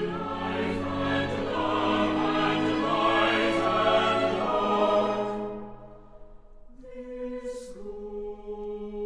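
Background choral music: a choir singing held chords, fullest and loudest in the first half, fading away around the middle, then coming back more softly with long held notes.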